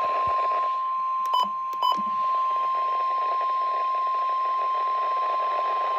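NOAA Weather Radio's single-tone warning alarm, one steady unbroken beep over radio hiss, announcing the tornado watch alert that follows. Two short clicks break in about a second and a half in.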